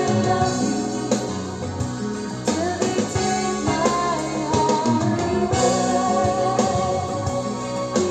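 A song with guitar and drums played back through a pair of Dali Zensor 3 bookshelf speakers driven by an Aiyima D03 amplifier, as a sound test.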